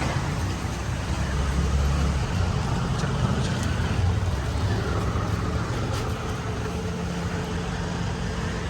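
Road traffic and vehicle engines running, a steady low rumble.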